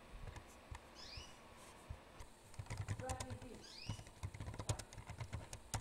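Typing on a computer keyboard: a scatter of quick key clicks, busiest in the second half.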